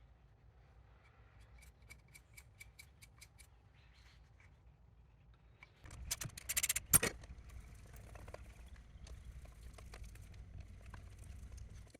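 A ratchet wrench clicking at an even pace, about four clicks a second, as nuts on the gearbox cover are run down. About six seconds in comes a loud jangling clatter of metal tools and parts being handled, followed by lighter handling noise.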